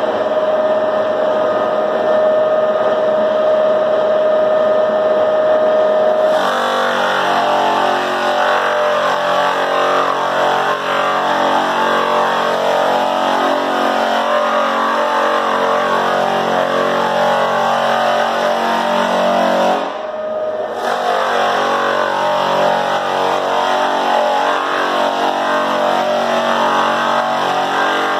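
American Clarke split-drum floor sander running, loud throughout. For about six seconds its motor hums with a steady high tone; then the drum bites into the hardwood and the sound turns to a rough sanding noise, easing briefly about twenty seconds in. The sandpaper is not clamped tightly enough on the split drum.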